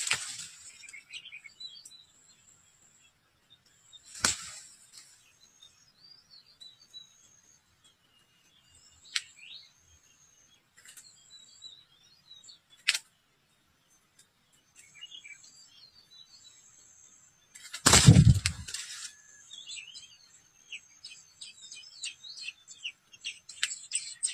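Small songbirds at a nest chirping and twittering in short high notes, ending in a rapid run of high chirps like nestlings begging. Brief loud rustles break in at the start, about four seconds in, and most loudly about eighteen seconds in.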